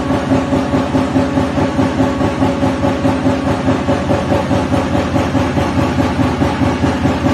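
CNC turret punch press nibbling contours in sheet metal: a rapid, even train of punch strokes over a steady machine hum, which stops at the very end.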